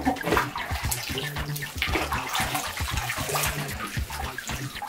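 Soapy bathwater sloshing and splashing as a soaked fursuit and a plush toy are moved and dunked in a bubble-filled bathtub, in many short irregular splashes.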